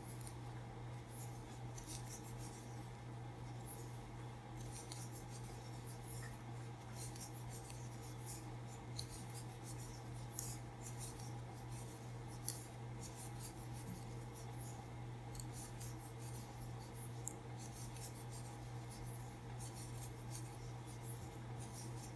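Faint, quick scratching and light ticks of a metal crochet hook drawing worsted-weight yarn through single crochet stitches, with a couple of sharper ticks near the middle, over a steady low hum.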